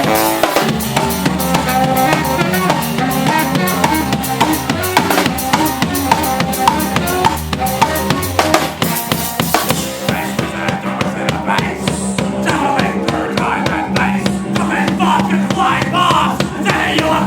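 Live rock band playing: a drum kit beats out a busy groove over a steady bass line. About ten seconds in the cymbals drop out, and a wavering higher melody comes forward near the end.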